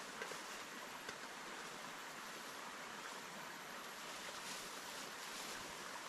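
Small river running: a steady rush of flowing water, with a couple of faint ticks in the first second.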